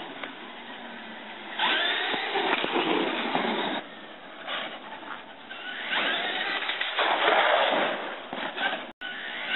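Electric RC monster truck's brushless motor and drivetrain whining under throttle. It surges twice, about two seconds in and again about six seconds in, rising in pitch as it accelerates.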